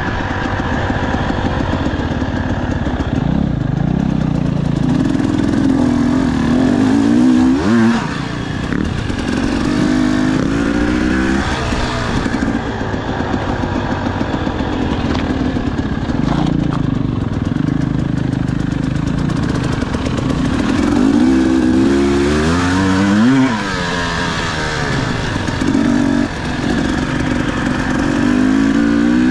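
Dirt bike engine ridden off-road, revving up and easing off again and again as the rider works the throttle through the gears.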